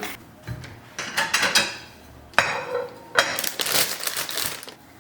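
Clatter and clinks of hard household objects being handled, several sharp knocks in a row.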